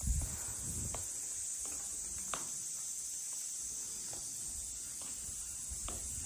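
A steady high-pitched insect chorus shrilling without a break, with a few soft footsteps on wooden floorboards in the first second.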